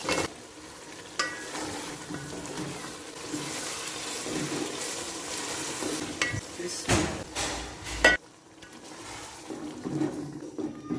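Food sizzling in hot oil in a cooking pot while a metal spoon stirs it, with sharp clinks of the spoon against the pot. The sizzle drops away about eight seconds in.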